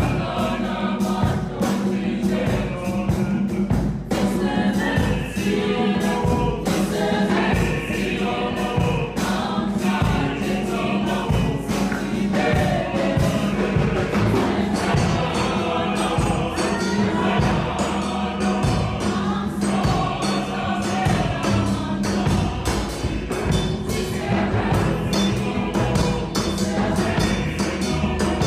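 Mixed choir of women's and men's voices singing together, with a steady beat of hand claps under the singing.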